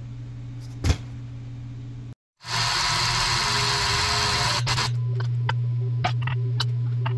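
A steady low motor-like hum, with a hiss over it for about two seconds. Then several light metal clicks as press adapters are fitted against a steering knuckle under a hydraulic press ram.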